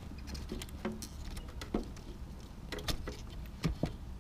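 Scattered plastic clicks and rustles of a scooter CDI unit and its wiring harness being handled and worked onto its mount, over a low steady hum.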